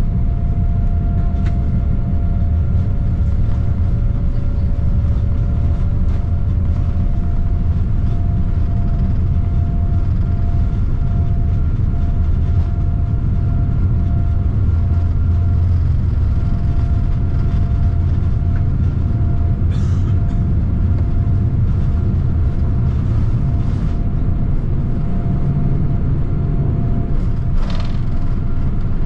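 Cabin noise of a Boeing 787-9 on its takeoff roll: a loud, steady low rumble of the wheels on the runway and the engines at takeoff power, with a thin steady whine that stops near the end as the aircraft rotates. A few brief knocks, one near the end.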